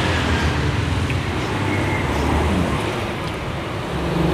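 Steady low rumble of road traffic passing by, rising and easing a little without a break.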